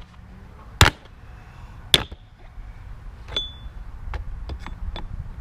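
Hammer blows on a steel safe: two hard strikes about a second apart, the second ringing briefly, then a few lighter metallic taps and clinks. The safe's hinge has been knocked off and the locked door is being hammered at to break it open.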